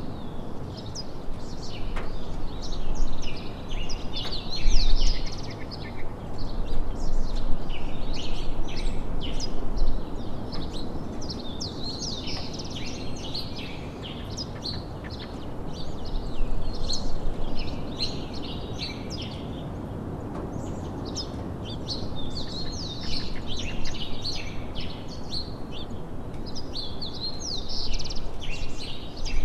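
Many birds chirping and calling together, a dense run of short high chirps that swells and fades, over a steady hiss of outdoor background noise.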